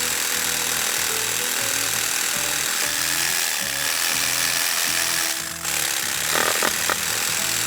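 Cartoon background music with a repeating bass line, under a constant harsh hiss like a machine sound effect. The hiss dips briefly about five and a half seconds in, followed by a short cluster of higher effect sounds.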